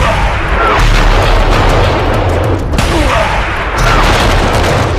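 Loud, dense blast and explosion noise of action-scene sound effects, with a brief dip a little over halfway.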